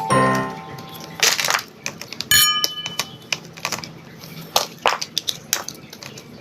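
Plastic building bricks clicking and clattering in irregular short taps as pieces are handled and snapped together. A brief chime sounds about two and a half seconds in.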